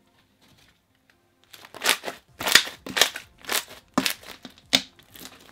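Pink fluffy slime being squeezed and kneaded by hand, giving a run of crackly, crunchy squishes as air pockets in it pop, about two a second, starting about a second and a half in.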